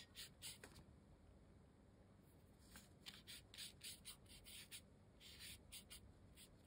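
Faint strokes of a paintbrush scrubbing wet paint onto watercolour paper: a few short brushing sounds near the start, then a run of quick strokes from about three seconds in.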